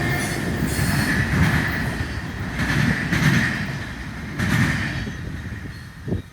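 Freight cars rolling slowly past: steel wheels rumbling on the rails with a steady high wheel squeal and a few clanks, dying away near the end.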